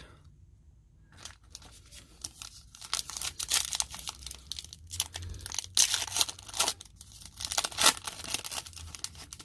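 Foil wrapper of a 2019 Donruss Elite football card pack being torn open and crinkled, in a run of irregular crisp rustles and tears.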